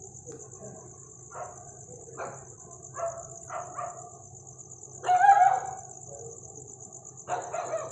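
Dogs barking in short, scattered barks, with a louder burst of barking about five seconds in and another near the end. A steady high-pitched hiss runs underneath.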